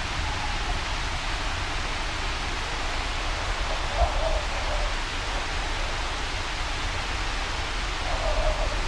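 Steady storm ambience of wind and rain: a dense, even hiss over a low rumble, with a faint whistling tone that comes up briefly about four seconds in and again near the end.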